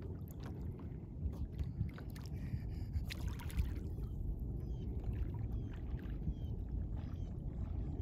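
Steady low rumble of wind and water around a kayak on open water, with a few faint clicks and short, faint high chirps in the middle.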